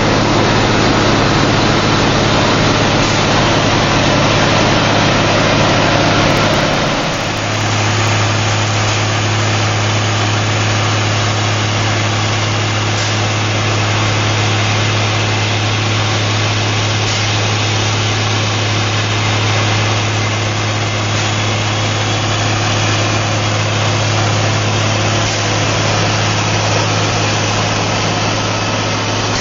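Ingersoll-Rand DM45 crawler blast hole drill running while drilling: a loud, steady drone from its Cummins N14 diesel engine and air compressor, with a strong low hum under it. About seven seconds in the sound shifts: the hiss eases and the low hum gets stronger.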